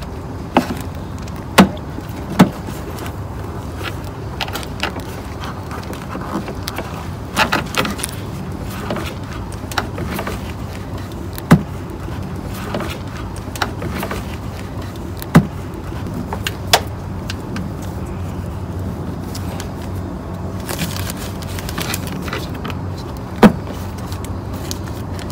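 Handling of a plastic headlight housing and its wiring connectors, with scattered sharp clicks and knocks, about eight in all, at irregular intervals over a steady low background rumble.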